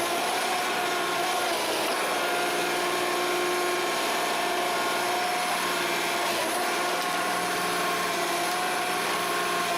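A forestry harvester at work, its machinery running steadily with a constant whine.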